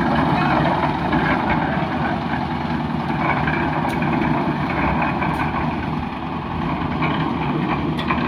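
An engine running steadily, a continuous low mechanical rumble.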